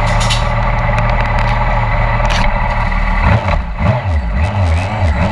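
Motorcycle engine idling steadily, then blipped several times from about three seconds in, its pitch rising and falling with each rev.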